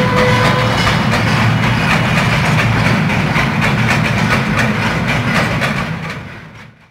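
Freight train's covered hopper wagons rolling past, steel wheels clacking over the rail joints in a quick even rhythm over a steady low rumble. A steady tone dies away within the first second, and the whole sound fades out near the end.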